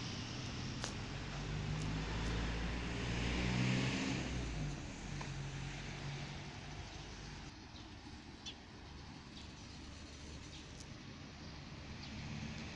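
A motor vehicle's engine running close by, growing louder to a peak about four seconds in and then fading away as it passes.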